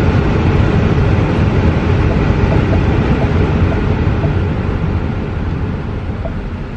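Car air-conditioning fan blowing hard inside the cabin, a loud, steady rush with a low rumble. It eases off gradually through the second half as the fan speed is turned down.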